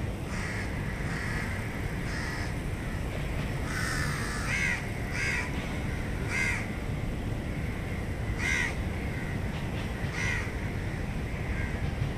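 Birds calling: about ten short, separate calls at uneven intervals, over a steady low city rumble.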